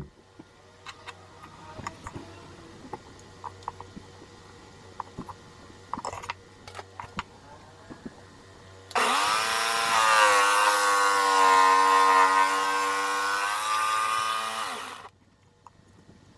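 Table-mounted jigsaw starting up about nine seconds in and running steadily for about six seconds as it cuts a short slot into a small wooden block, then stopping. Before it, a few light clicks and taps of the wood and a steel rule being handled on the table.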